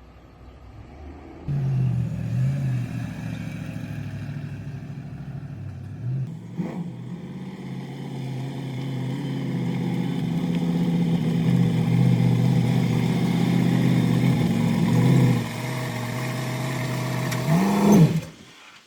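A vehicle engine running steadily, revving up with a rise in pitch near the end, then cutting off suddenly.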